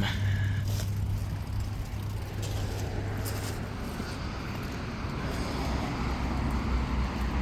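Steady low rumble of road traffic, with a stronger low hum in the first few seconds as a vehicle passes or idles close by.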